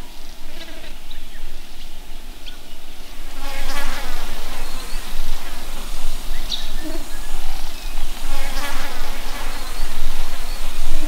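Insects buzzing, the buzz wavering in pitch and swelling and fading in waves, loudest from about three and a half seconds in and again near the end. One short high bird note comes about six seconds in.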